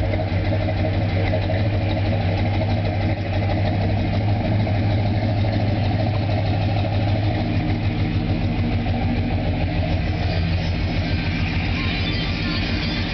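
A 1973 Chevrolet Caprice's V8 engine idling steadily, with an even, rapid low pulse.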